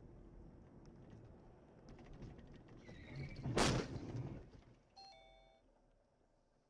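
A car colliding with a taxi, heard from inside the camera car: low road and engine rumble, a short squeal of braking, then a loud crash about three and a half seconds in. A brief beep follows about a second later.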